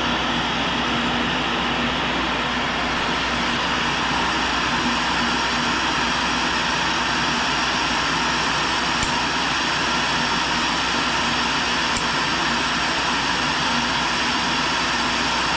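Tool and cutter grinder running steadily while a roughing end mill is re-ground, a constant whirring hiss over a low hum.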